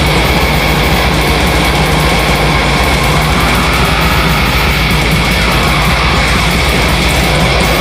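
Death metal music: a loud, dense, unbroken wall of distorted electric guitar, recorded on a cellphone with bare-bones mastering.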